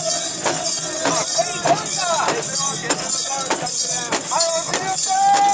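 A mikoshi (portable shrine) on the move: its metal rings and fittings jingle in a steady beat of about two and a half a second as the bearers jolt it along. Bearers' voices chant and shout in time over it, with one long held call near the end.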